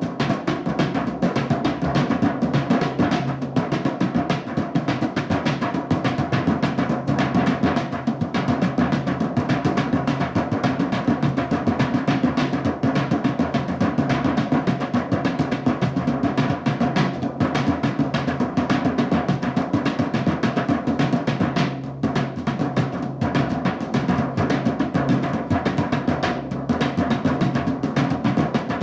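Drumming on a soundtrack: a dense, unbroken run of drum strokes at an even level.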